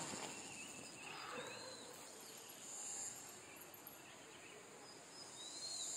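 Faint, steady high-pitched drone of insects in woodland, swelling about three seconds in and again near the end, with two short bird chirps.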